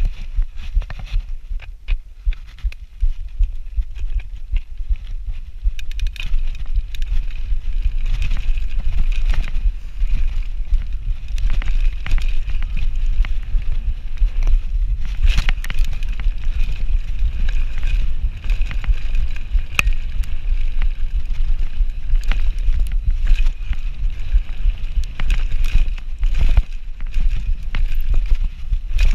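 Mountain bike ridden fast on a dirt trail: heavy wind rumble on the microphone, with the tyres running over dirt and many sharp clicks and rattles from the bike over bumps. A steady high buzz joins about six seconds in.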